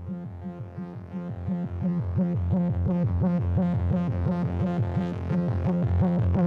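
Electronic background music: a pulsing synthesizer bass line with higher synth notes above it, getting louder about two seconds in.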